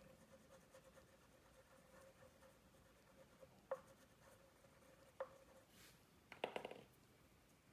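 Faint scratching of a wax crayon colouring on paper, with a few light clicks and a short cluster of taps in the second half. A faint steady hum lies underneath.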